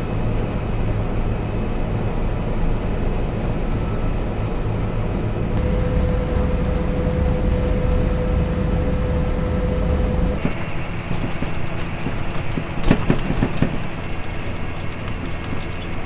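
John Deere combine harvester running while cutting wheat, heard from inside the cab: a steady engine and machinery drone, with a steady whine through the middle part. After about ten seconds the drone turns lighter, with a scatter of clicks and rattles.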